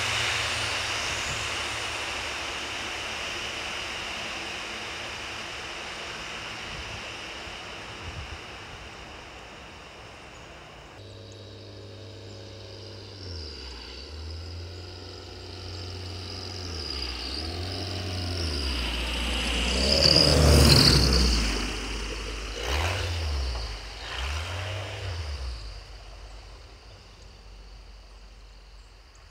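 Zenith 750 STOL light aircraft with a Viking 130 engine under takeoff power, its propeller drone fading as it climbs away. After a cut the engine is heard again, rising and falling as it approaches, loudest as it passes about two-thirds of the way through with its pitch dropping, then fading out.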